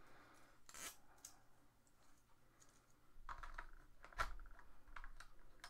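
Faint, scattered clicks and taps of small plastic sewing-machine presser feet being handled, the loudest a little past four seconds in.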